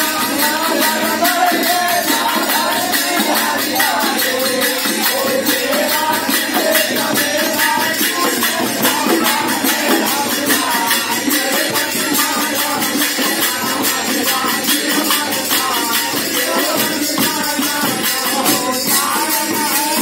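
A group of men singing a Holi folk song together, backed by a dholak drum and hand-held jingle rattles shaken in a fast, steady rhythm.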